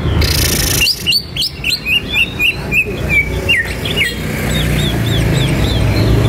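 Male greater green leafbird (cucak ijo) singing a run of sharp whistled notes, about four a second, each a quick sweep up or down in pitch, then a softer series of short falling notes. A brief hiss comes just before the song starts.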